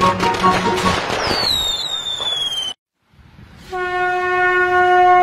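Fireworks sound effect: crackling pops and falling whistles, cut off suddenly a little under three seconds in. After a short gap, a conch shell (shankh) is blown in one long, steady note.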